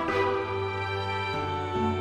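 Background music: an instrumental piece of sustained held notes, the chord changing about a second and a half in.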